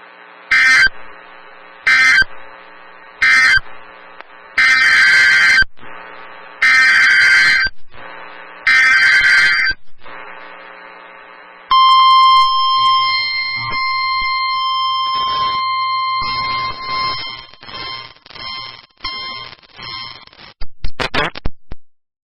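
NOAA Weather Radio Emergency Alert System tones: three short digital data bursts, then three longer SAME header bursts (the warbling data squawks), followed by the steady 1050 Hz weather-radio warning alarm tone for about eight seconds, turning choppy before a brief crackle near the end.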